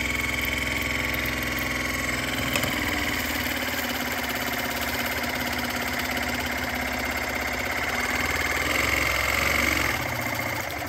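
Water flosser's pump running with a steady, rapidly pulsing buzz, the pump working normally with its new handle hose fitted.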